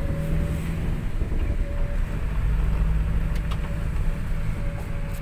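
A car driving along, heard from inside the cabin: a steady low engine and road rumble with a faint steady hum.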